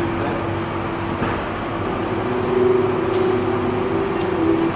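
A large vehicle's engine running, with a steady hum that grows louder and shifts in pitch about halfway through.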